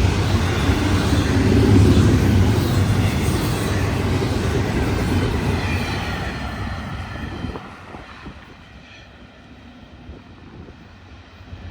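Florida East Coast Railway freight train's cars rolling past, a dense low rumble with rail clatter. About seven and a half seconds in the noise falls away sharply to a faint background with a few light clicks.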